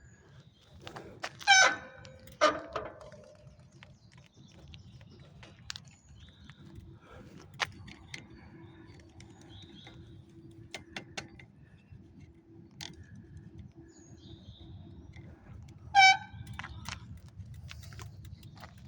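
Bicycle brakes squealing in short, loud, high-pitched bursts, twice close together about a second and a half in and once more near the end, with scattered clicks and a low rumble of riding between.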